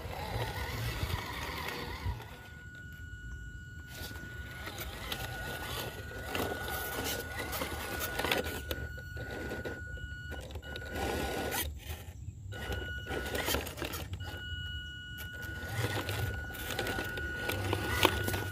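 Small-scale RC rock crawler driving over rough ground: the brushed 180 motor and stock gearbox give a steady high whine, with tyres scraping and crunching on rock. It stops and starts several times as the throttle is let off and applied.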